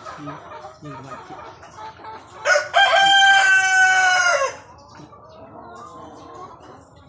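A broiler breeder rooster crows once, a single loud call of about two seconds starting about two and a half seconds in, held on one pitch and dropping off at the end.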